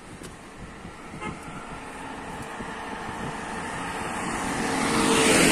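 A car driving up the road and passing close by, its engine and tyres growing steadily louder to a peak near the end.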